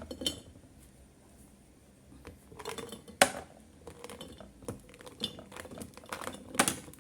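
Dried figs being dropped into a glass jar, knocking and clinking against the glass in scattered hits. The loudest hit comes about three seconds in, and another cluster comes near the end.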